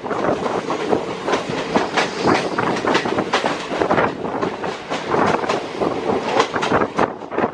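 Passenger train running past, its wheels clattering over the rail joints in a fast, uneven run of clicks over a steady rumble.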